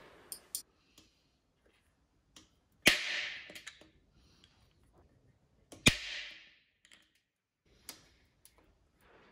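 Glue-tab dent puller on a steel motorcycle fuel tank, the glued pulling tab snapping free twice about three seconds apart. Each release is a sharp crack followed by a short hissing tear, with a few faint clicks from the puller in between.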